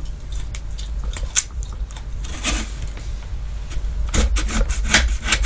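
Small knife peeling and cutting a ripe persimmon by hand: a run of short scrapes and clicks, thicker near the end, over a low steady hum.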